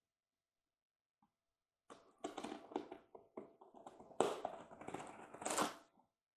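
Hands handling a boxed model train and its packaging: a run of irregular taps, clicks and rustles of cardboard and wrapping, starting about two seconds in.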